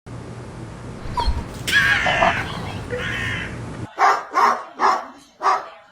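A dog barking four times in quick succession, after a stretch of noisy background with a short high whine.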